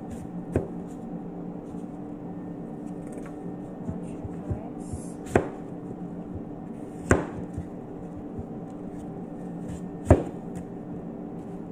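Kitchen knife cutting an apple on a cutting board: four sharp knocks of the blade hitting the board, spread out and the loudest near the end, with fainter ticks between. A steady low hum runs underneath.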